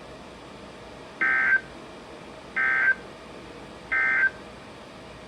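Emergency Alert System SAME data tones: three short, identical bursts of digital data squawk about a second and a half apart. This is the End of Message code sent three times, the signal that closes the alert.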